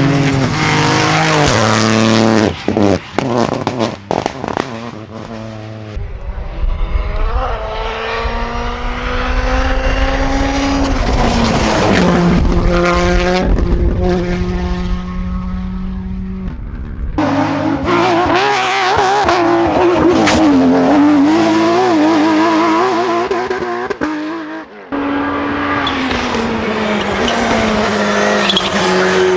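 Rally cars at full throttle on a special stage, engine pitch climbing through the gears and stepping at each shift, in several separate passes. Sharp cracks about two to five seconds in, and a spell of wavering revs in the second half.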